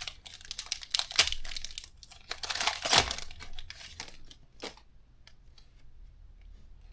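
Pokémon TCG foil booster packs being torn open and crinkled by hand. There are loud rips about a second in and around three seconds in, then a shorter one, and after that only faint rustling of the wrappers.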